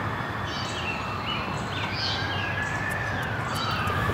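Outdoor ambience: birds chirping repeatedly over a steady rushing noise, with a faint drawn-out tone that slowly rises and then falls away near the end.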